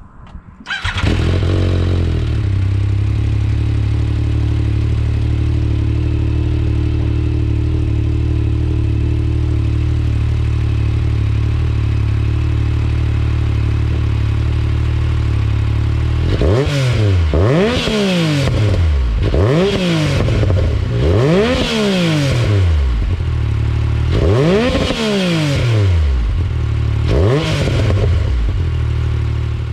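Yamaha YXZ1000R's three-cylinder engine with an aftermarket GYTR exhaust, idling steadily, then blipped through several quick revs that rise and fall over the last dozen seconds.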